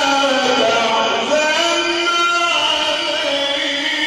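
Male Qur'an reciter chanting in the melismatic mujawwad style: one long unbroken phrase of held notes that step and glide in pitch.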